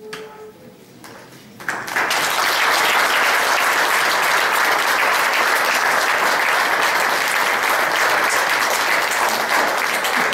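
Applause from a small audience, starting about two seconds in and continuing steadily. It greets the announced election of the new mayor.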